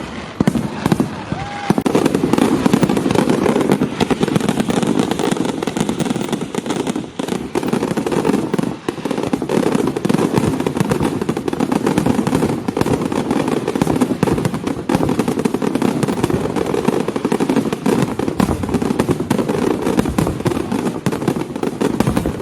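Fireworks going off in a dense, continuous barrage of bangs and crackles, thickening about two seconds in.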